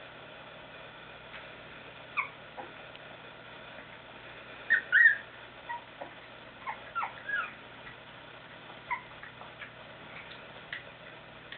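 One-month-old Chow Chow puppies whimpering in short, high squeaks, scattered through, the loudest a quick pair about five seconds in.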